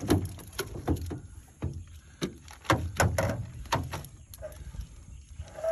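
A freshly landed snakehead thrashing in a landing net, knocking the net and itself against the aluminium boat's hull in a run of irregular thuds and knocks, a few of them loud.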